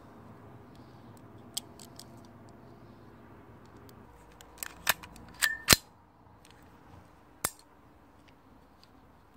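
Metallic clicks and clacks of a pistol being handled and loaded. A few light clicks come first, then a quick run of sharp, louder clacks about five seconds in, one with a brief metallic ring, and one more clack about two seconds later.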